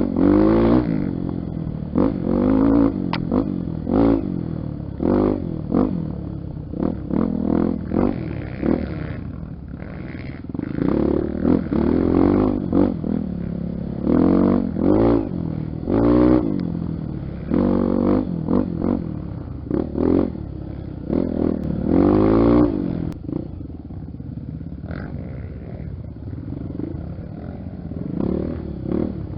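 Honda XR250 Tornado trail motorcycle's engine revving up and dropping back again and again, in short bursts of throttle on a dirt trail. It settles to a lower, steadier running about two-thirds of the way through, then picks up again near the end.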